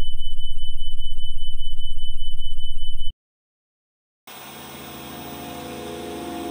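A loud, harsh electronic buzz with a steady high whine cuts off abruptly about three seconds in. After about a second of dead silence, an old CRT television's static hiss and steady hum fade up slowly.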